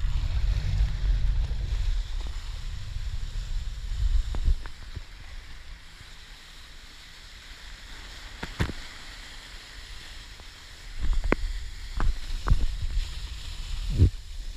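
Wind buffeting the action camera's microphone and water rushing and spraying under a wakeboard planing across the lake, the rumble heaviest in the first few seconds and again near the end. Several sharp knocks stand out, most of them near the end.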